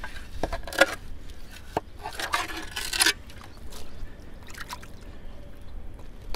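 Muddy water sloshing and squelching as a gloved hand gropes through the mud of a flooded privy pit. It comes in a few short bursts, the longest about two seconds in.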